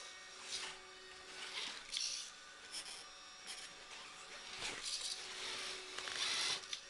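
Redcat Rockslide RS10 XT RC rock crawler's electric motor and gearing whirring quietly in short spurts, with a faint whine, as its tyres scrabble and rub over the course, with a few small knocks.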